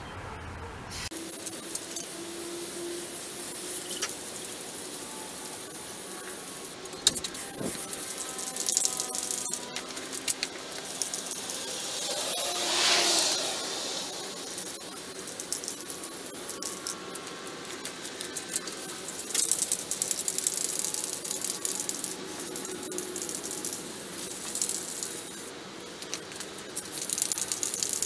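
Rust-Oleum aerosol spray paint can hissing in repeated long passes, with the can shaken between passes so its mixing ball rattles.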